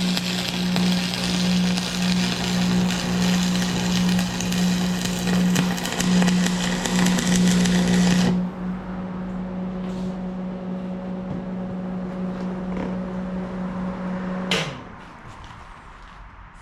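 Electric welding arc crackling and sizzling over a steady machine hum. The arc stops abruptly about eight seconds in as the weld bead ends. The hum runs on until a click about six seconds later cuts it off.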